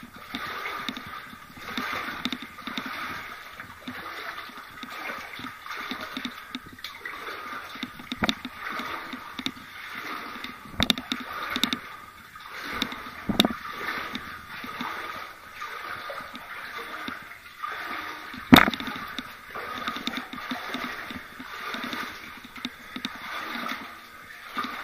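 Footsteps wading through shallow water along a flooded mine tunnel, splashing and sloshing at about one step a second. A few sharp knocks come through, the loudest a little past the middle.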